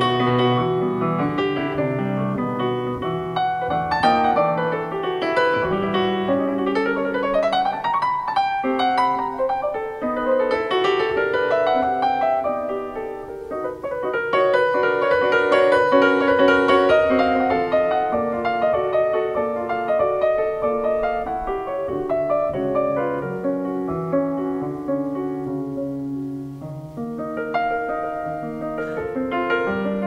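Solo grand piano played live: a flowing passage of chords and runs, with a quick upward run about seven seconds in.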